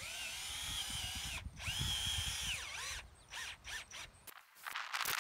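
Power drill boring holes for 3/8-inch lag bolts: the motor whines up to speed, runs and winds down, twice, followed by a few short trigger bursts. Near the end a louder, noisier rattling sound starts.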